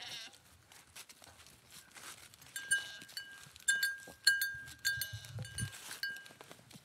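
A goat bleats briefly at the very start. From about two and a half seconds in come about seven sharp, high metallic clinks, each ringing on briefly, as of metal on a goat's collar knocking together. Low scuffing from goats' hooves comes near the end.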